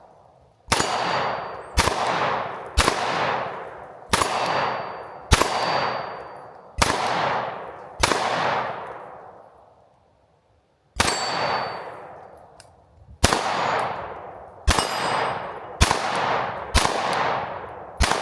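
Sig P365 X Macro 9mm pistol fired at steel targets, about a shot a second with a pause of a few seconds midway. Each sharp report is followed by the long metallic ring of a struck steel plate.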